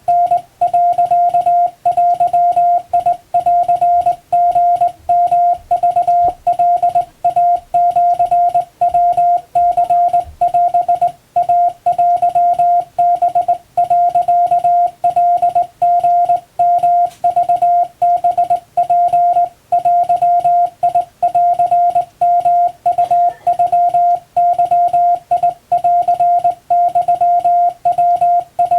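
Hand-keyed Japanese (wabun) Morse code: a single steady beep switching on and off in a continuous run of dots and dashes.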